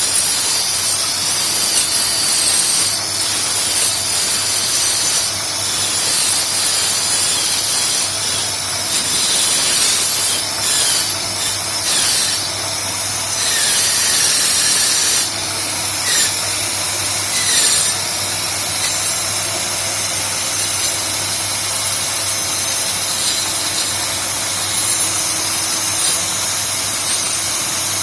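Homemade wood copying machine running and cutting into wood, a steady loud power-tool noise with a low hum and a few brief changes in pitch around the middle.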